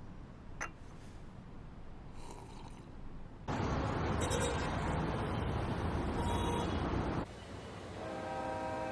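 Street traffic noise, starting suddenly about three and a half seconds in and cutting off about seven seconds in. In the last second a steady held tone of several pitches begins.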